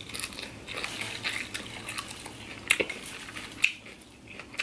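Close-up chewing of crunchy raw salad, shredded cabbage and kale, with a metal fork clicking and scraping through the salad in a glass baking dish. The crunches and clicks come irregularly, with a couple of sharper ones about three seconds in and again a little later.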